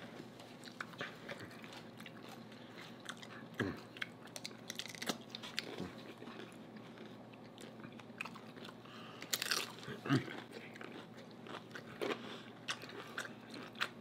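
Close-miked chewing and crunching of tortilla chips topped with shrimp ceviche, with many short mouth clicks and louder crunches about three and a half seconds in and again around nine to ten seconds in.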